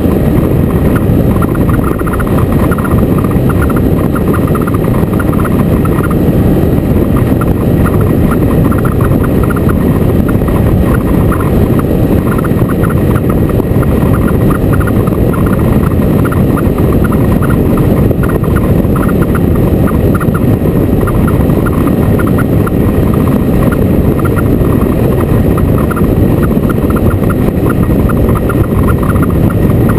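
Motorcycle on the move: a loud, steady rush of wind on the microphone mixed with engine and road noise, unbroken throughout.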